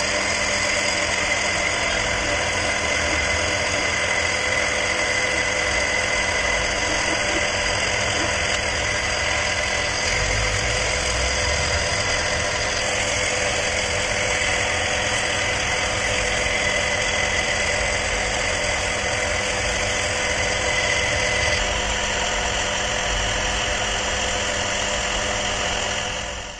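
Wood lathe running steadily while a hand-held turning chisel cuts a spinning wooden handle: an even hum with a high whine over it, cutting off abruptly at the very end.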